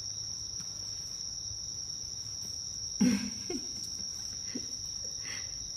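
Steady high-pitched chorus of autumn night insects, crickets, with a short louder bump about three seconds in.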